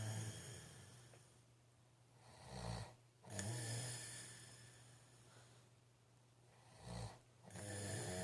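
A man snoring in his sleep, two full breath cycles about four seconds apart, each a short rattling snore followed by a longer breathy sound that fades away.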